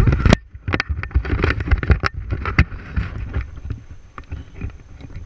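Wind rumbling on a body-worn camera's microphone, with irregular knocks, scrapes and rustles as hands and feet grip beech branches and brush through leaves during a free climb.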